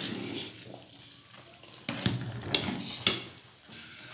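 A long metal spoon stirs and scrapes thick cooked rice against the side of a large metal pot, with three sharp knocks of the spoon on the pot between two and three seconds in. This is the rubbing stage, worked to make the rice smooth and sticky.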